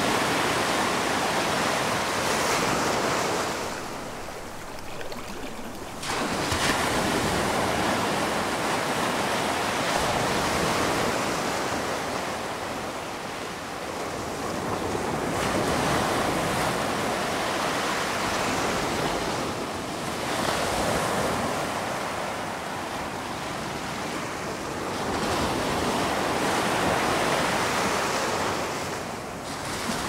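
Ocean surf: waves breaking and washing in, a steady rush of water that swells and eases every several seconds.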